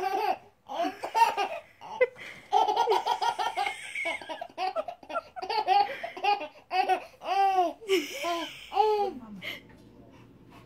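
Baby laughing, a quick run of short high-pitched bursts that rise and fall, dying away about a second before the end.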